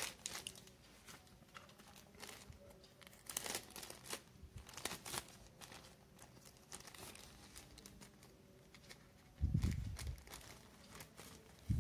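Small paper pouch being handled and torn open by hand: faint scattered crinkling and tearing rustles, with one dull low bump from handling near the end.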